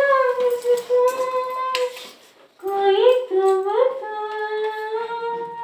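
A high voice singing long held notes without clear words: one phrase of about two seconds, a short break, then a phrase that slides up twice before settling on a long held note.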